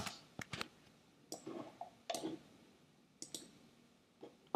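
Light, irregular clicks of a computer mouse and keyboard, about nine in all, spaced from a fraction of a second to about a second apart.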